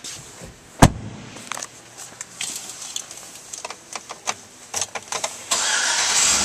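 A thump just under a second in, then small clicks and key rattles at the ignition. About five and a half seconds in, the 2013 Chevrolet Avalanche's 5.3-litre V8 starts and runs on at a steady idle.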